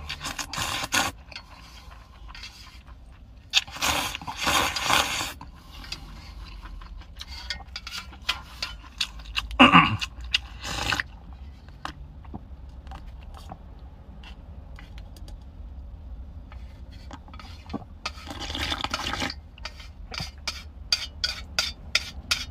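Slurping of noodles and soup in several long bursts, with short clicks of chopsticks against a metal pot in between.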